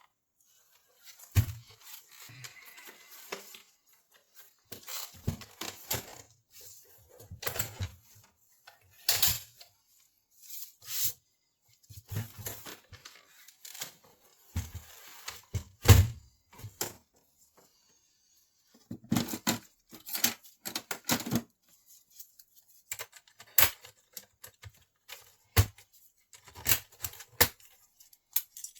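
Irregular plastic clicks, knocks and short scrapes from an HP SK-2502C membrane keyboard being handled and worked on, in uneven bursts with brief pauses.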